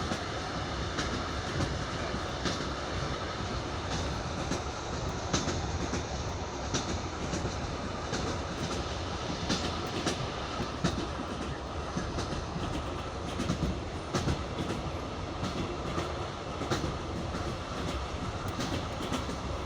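Passenger train running on jointed track: a steady rumble with the wheels' clickety-clack as they cross the rail joints, the clicks coming in uneven groups.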